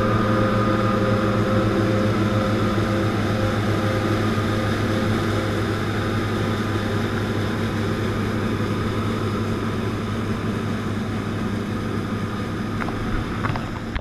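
John Deere combine running while harvesting wheat: a steady machinery drone from the engine, header and threshing works, heard close up beside the front wheel. It grows gradually quieter.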